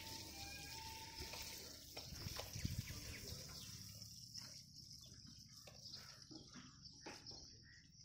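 Faint outdoor ambience: a steady, high-pitched insect drone, with a few soft knocks.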